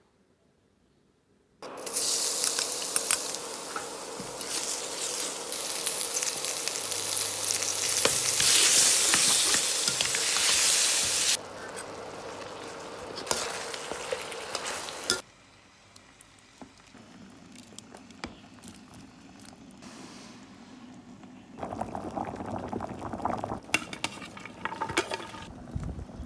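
Food sizzling and frying in a hot pan, in several edited stretches: loudest in the first half, dropping off sharply about 15 seconds in, then building again with more crackle about 22 seconds in.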